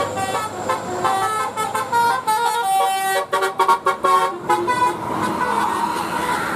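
Basuri telolet bus horn, a multi-tone melody horn, playing a quick tune of short tooting notes, with a run of very short staccato notes in the middle.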